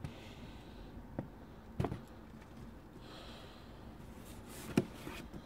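Four short soft knocks and handling noises, the loudest near the end, with a faint breath in between.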